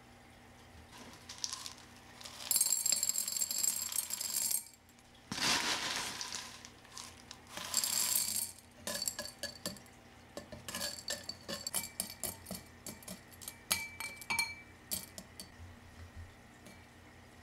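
Round clay pebbles poured from a scoop into a glass jar, clattering against the glass and each other in three pours, followed by a run of separate clicks and taps as single pebbles drop and shift.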